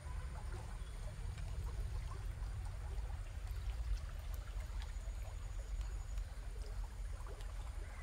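Shallow stream running over a stony bed: a soft, even babble of water with small splashy ticks, over a steady low rumble.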